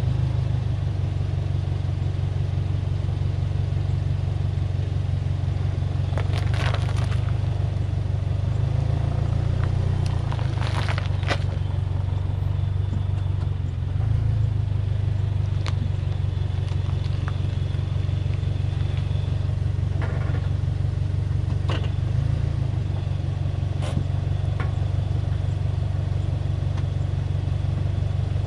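A 7-seater SUV's engine idling with a steady low hum as its tyre slowly rolls over a durian, the spiky husk cracking and crunching under the weight. A few sharp crackles come through it, the strongest about 7 and 11 seconds in, with more scattered crackles later as the tyre goes back over the crushed pieces.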